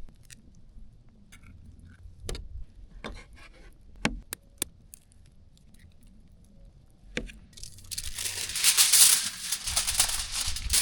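A few scattered clicks and knocks of food packaging being handled, then about eight seconds in a loud, dense crinkling of a plastic bag being opened and rummaged.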